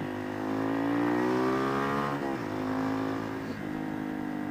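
Honda supermoto's engine accelerating, its pitch rising for about two seconds, then dropping sharply and running on steadily at lower revs.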